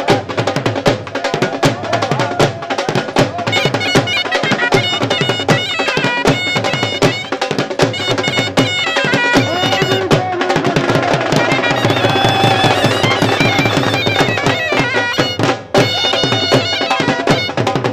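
Traditional folk dance music: a wind instrument plays a wavering melody over a steady drone, with fast, steady drum beats.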